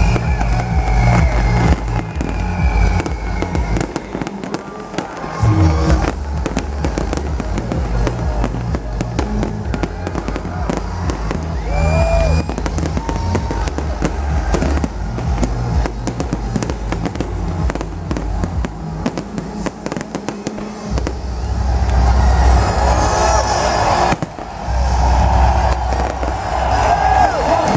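A fireworks display bursting and crackling in quick succession over loud electronic dance music with a heavy bass beat. The bass drops out briefly twice, and crowd cheering rises near the end.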